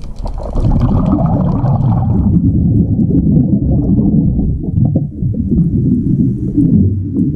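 A diver's exhaled bubbles from the breathing regulator gurgling and rumbling as they are heard underwater: a dense low rumble, brighter and hissier for about the first two seconds.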